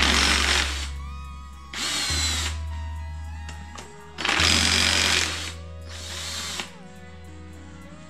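Cordless power driver spinning out the connecting-rod (big end) cap bolts on an engine bottom end, in four short runs of about a second each. Background music plays throughout.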